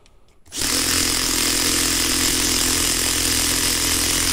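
Bosch GSR 120-LI 12 V cordless drill/driver running steadily under load in first gear, driving a thick screw into a block of wood with its clutch at the top setting of 20. It starts about half a second in.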